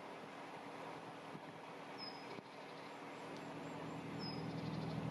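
Narrowboat engine running steadily while under way, a low even hum. A bird gives two short high calls, about two and four seconds in.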